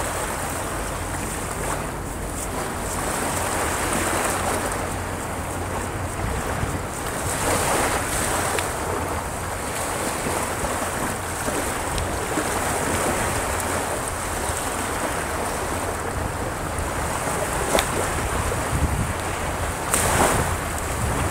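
Surf on the Gulf of Mexico: small waves breaking and washing up the beach in a steady rush that swells and eases every few seconds, with wind rumbling on the microphone and a few sharp clicks.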